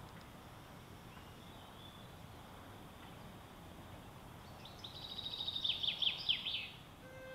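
Outdoor ambience with a steady faint hiss, and a songbird singing one short rapid trill about four and a half seconds in: a quick run of high falling notes lasting about two seconds, slowing into a few longer downward notes at the end.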